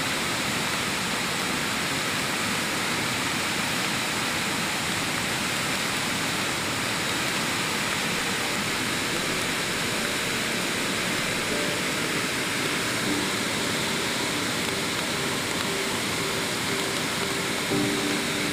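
A waterfall in flood after heavy rain, swollen with muddy water, makes a steady, dense rush of falling water.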